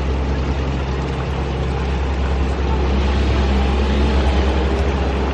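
Mobile crane's engine running steadily with a low drone.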